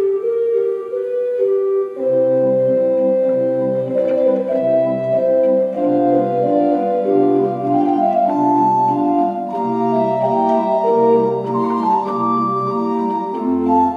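Kenneth Tickell pipe organ playing a slow, gentle piece: a melody alone at first, joined about two seconds in by steadily repeated chords in the lower parts, with a deeper bass note entering near the end.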